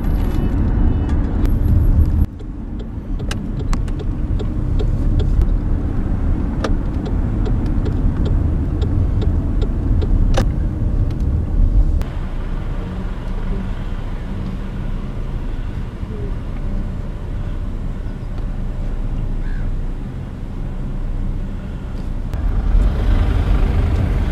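Engine and road noise heard from inside a car's cabin as it drives slowly, with a few light clicks. The sound changes abruptly about two seconds in, again near the middle and again near the end.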